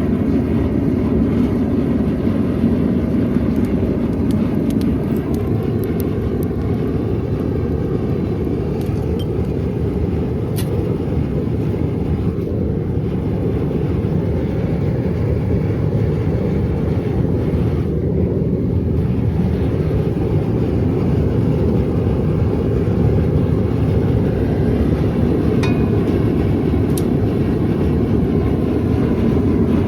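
Diesel-fired crucible furnace burning steadily at full melt, a loud even rushing noise sitting low in pitch, with a few faint clicks over it.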